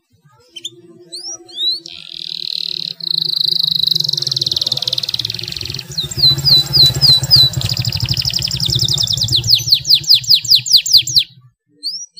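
Canary singing a long song: a few rising chirps, then long buzzing rolls held near one pitch, a short run of rising notes, and a fast trill of rising notes. The song stops about a second before the end.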